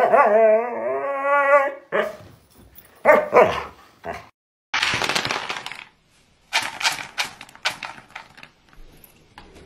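A husky vocalizing: one long, wavering whine-howl, the loudest sound, then a few shorter calls. About halfway through, dry dog kibble is scooped and poured, with a rush followed by many small pieces clicking into a bowl.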